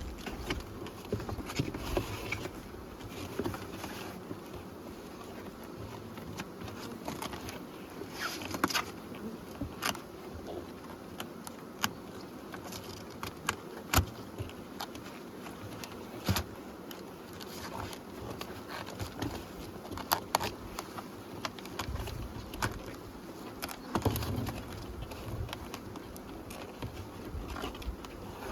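Honeybees buzzing steadily, with scattered sharp clicks and snaps of corrugated plastic nuc boxes being folded by hand.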